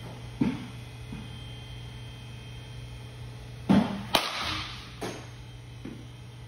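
A baseball bat swing with a whoosh, then a sharp crack of contact about four seconds in, followed by a few softer thumps, over a steady low hum.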